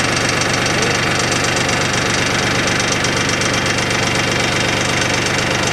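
Mahindra Max 24 tractor's three-cylinder diesel engine running steadily.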